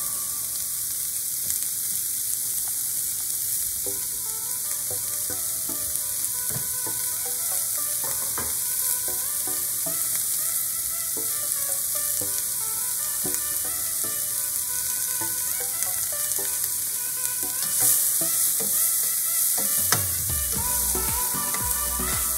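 Sliced onions and peppers frying in a nonstick pan, with a steady sizzling hiss. Near the end a metal spatula stirs and scrapes them around the pan.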